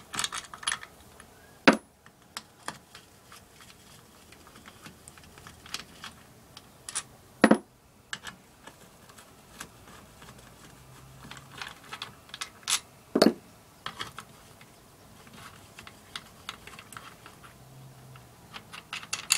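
Small metallic clicks and clinks of a hand wrench and loose bolts being handled as the sump bolts are taken out of an 8 hp Briggs & Stratton engine, with three sharper knocks spread through.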